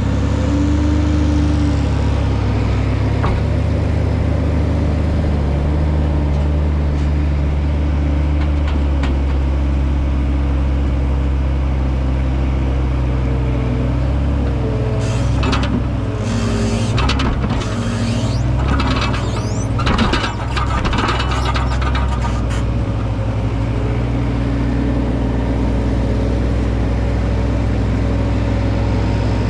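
Farm machinery engine running steadily, with a stretch of clattering and rattling about halfway through.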